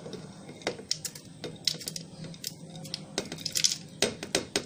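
Light clicks and clinks of kitchen utensils against dishes as banana is put into the mixer jar, scattered at first and then coming quickly near the end.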